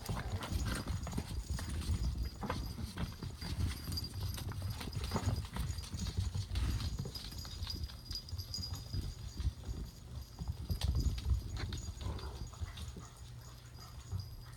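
Puppies running and scrabbling on a hard floor, claws clicking and paws thumping, with a small collar bell jingling as they move. The activity dies down a little near the end.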